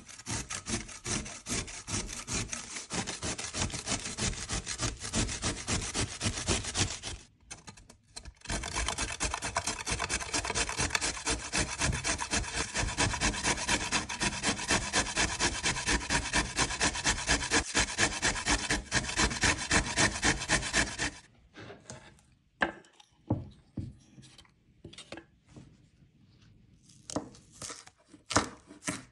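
Cabbage, then a carrot, rubbed fast against a stainless steel cone grater: a dense run of rasping strokes, with a short break about a quarter of the way in and the grating stopping about two-thirds of the way through. Scattered knocks follow, and near the end a chef's knife cuts through green onions onto a bamboo cutting board.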